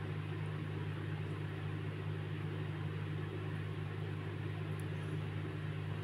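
Steady low hum with an even hiss underneath; no stitching sound stands out above it.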